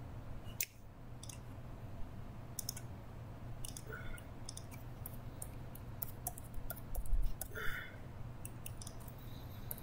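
Computer keyboard keys and mouse clicks, scattered and irregular, as an IP address and settings are entered, over a steady low hum. A louder low thump sounds about seven seconds in.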